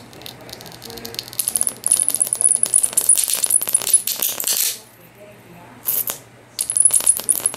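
High-voltage arc drawn from a flyback transformer driven by a ZVS driver, crackling with a high-pitched whine. It comes in bursts: one lasting about three seconds, then after a break a brief one and another near the end.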